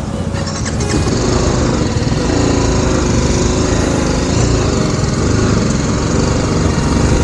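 Motorcycle engine running while riding, a steady drone that gets louder about a second in.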